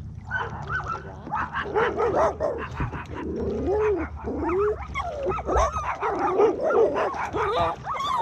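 Dog whining almost without a break in high, rising-and-falling cries, with short yips mixed in: eager to get to something at the water's edge.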